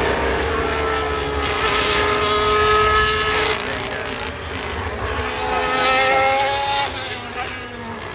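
Racing cars passing at speed around a circuit: two passes, each engine's high-pitched note sliding down as the car goes by.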